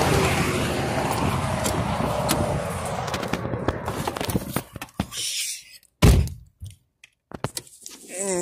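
Highway traffic noise that fades away, then the car door shutting with a single heavy thunk about six seconds in, followed by the quiet of the closed cabin with a few small handling clicks.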